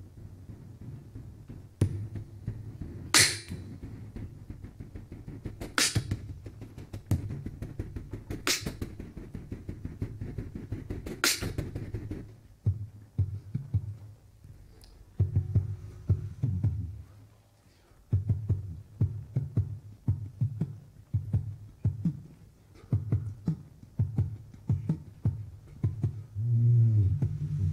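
Beatboxing into a handheld microphone: a dense run of vocal bass beats and clicks, with a sharp hiss about every two and a half seconds in the first half. From about halfway the beats thin out into slower bass pulses with short gaps, and a hummed pitched tone comes in near the end.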